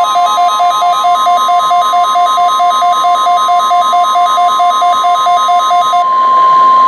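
NOAA Weather Radio warning alarm tone: one steady high tone, sounded for the weekly test of weather radio receivers. Over it, a second alarm beeps back and forth between two pitches about four times a second, stopping about six seconds in.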